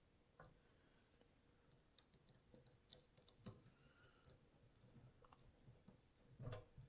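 Near silence, with a few faint, scattered clicks and ticks from hands twisting a plastic wire nut onto spliced electrical wires.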